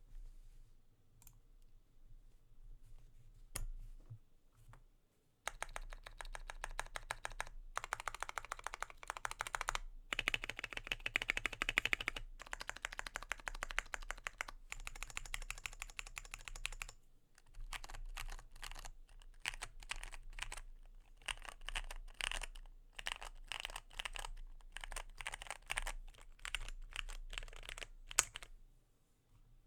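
Keychron Q1 mechanical keyboard with Gateron Phantom Brown tactile switches, tape-modded and with plate foam, being typed on: a few scattered keystrokes, then two long runs of fast typing with a short pause between, ending on one louder keystroke. The mods give it a popping, slightly thocky sound.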